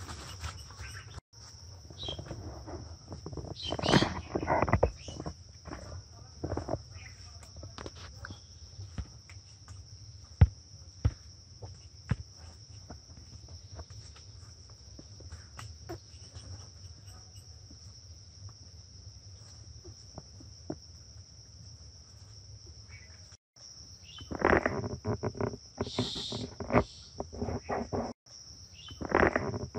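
Insects keep up a steady high drone, with bouts of leaves and branches rustling and brushing, and scattered sharp snaps, from a barefoot climber moving through undergrowth and up a tree trunk. The rustling is loudest about four seconds in and again near the end.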